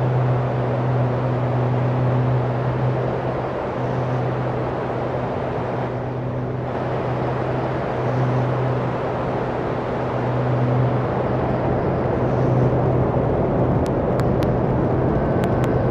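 Live noise music: a dense wall of hissing noise over a steady low drone. Near the end a few brief high clicks and a thin steady high tone come in.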